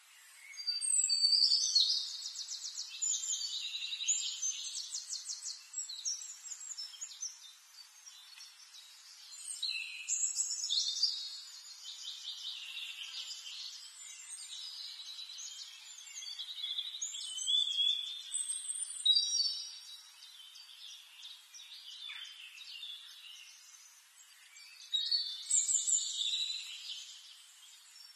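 A songbird singing: phrases of rapid high trills and whistles, four of them about eight seconds apart, with softer chirps in between.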